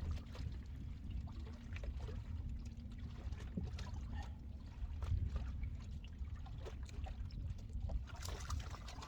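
Steady low rumble aboard a fishing boat, with a faint steady hum and scattered small clicks and knocks.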